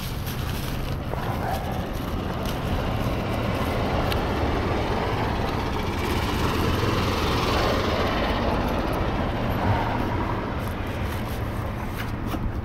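Shopping cart rolling over parking-lot asphalt: a steady rumbling rattle of its wheels and wire basket, with vehicle noise swelling in the middle and easing off near the end.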